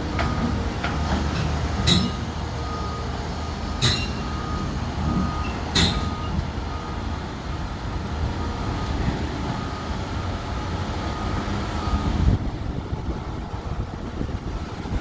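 A telescopic excavator's diesel engine runs steadily while its travel alarm beeps about twice a second, stopping about twelve seconds in. Three sharp metallic clanks about two seconds apart come in the first six seconds.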